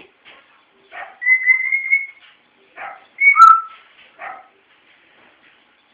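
Whistling: one note held for about a second, then a shorter two-note whistle that drops in pitch about three seconds in, with a few brief soft vocal sounds in between.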